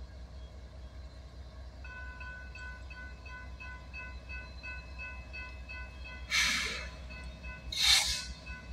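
Diesel freight locomotive approaching, its engine a steady low rumble. From about two seconds in, a pulsing set of high ringing tones begins, and near the end there are two short, loud bursts of noise.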